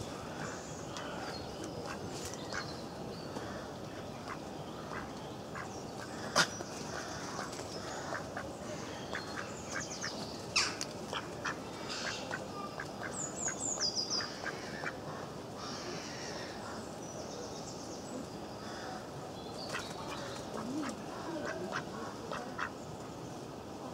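Mallard ducks quacking and foraging in wet leaf litter, with many short scattered clicks and a couple of sharper taps. A small bird chirps a quick run of high, falling notes about halfway through.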